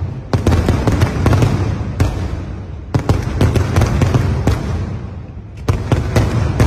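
Aerial firework shells bursting one after another: sharp booms followed by dense crackling over a continuous low rumble. Fresh volleys hit about a third of a second in, about three seconds in, and twice near the end, with a lull around five seconds.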